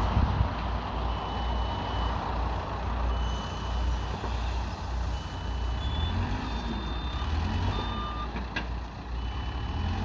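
Construction machine's reversing alarm sounding long single-pitch beeps about every two seconds, over the steady running of a diesel engine. A second, slightly higher-pitched alarm beeps briefly in the second half.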